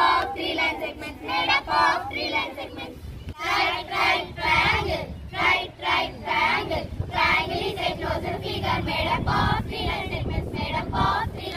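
A group of schoolchildren chanting a triangle rhyme together in unison. Boys' voices give way to a girls' group after a break about three seconds in.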